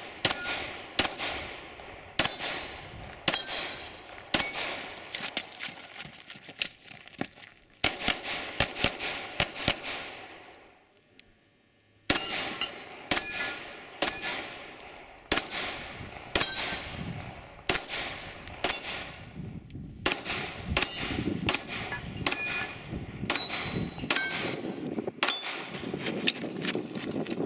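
Handgun shots fired in quick strings, each crack followed by a metallic ringing from steel targets being hit. The firing stops for about a second near the middle, then another string begins.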